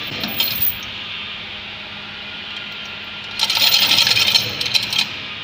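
Dent puller working on washers welded to a car door's steel panel, pulling out a creased body line. Metallic scraping and clicking, faint at first, then loud from about three and a half seconds in for a second and a half.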